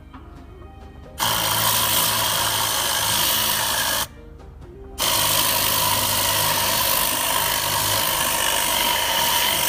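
Compressed-air Tornado cleaning gun blasting against car carpet: a loud, steady hiss of air and cleaning solution with a steady whine in it. It starts about a second in, cuts off around four seconds, and starts again about a second later.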